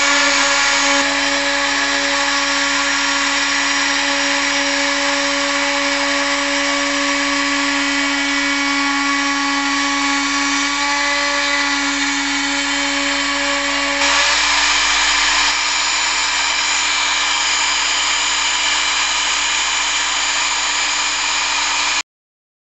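HobbyCNC router's spindle running as its bit carves a relief into wood: a steady whine laid over rough cutting noise. The tone changes about fourteen seconds in, and the sound cuts off suddenly near the end.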